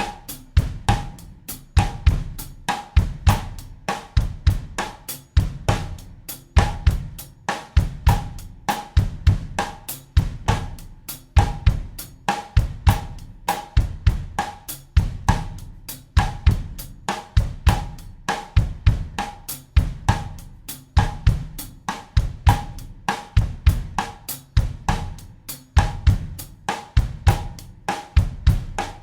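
Acoustic drum kit playing a steady bossa nova groove at 100 beats per minute in 4/4, with bass drum, snare and cymbals in an evenly repeating pattern.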